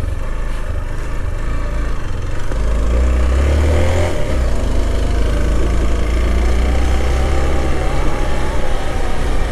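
Motorcycle engine running at low riding speed, its note rising about three seconds in and then holding steady.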